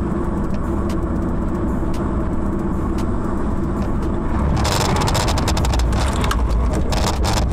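Car driving on a highway, steady road and engine noise heard from inside the cabin. About four and a half seconds in, a louder rushing hiss with rapid clatter sets in as slush sprays over the windscreen and the car swerves off the road.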